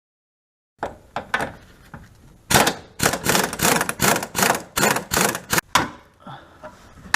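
A quick run of sharp clicks and knocks from hand tools on metal fasteners while the fuel tank is being dropped. They start suddenly about a second in, after a stretch of dead silence, and come fast and irregular, loudest in the middle.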